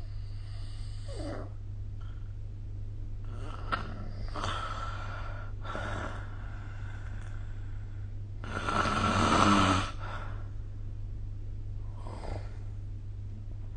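A sleeping person snoring: about five separate breaths, the longest and loudest one about eight and a half seconds in. A steady low hum lies under it.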